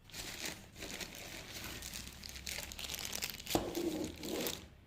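Plastic packaging crinkling and rustling as accessories are unwrapped and handled, with a single knock about three and a half seconds in.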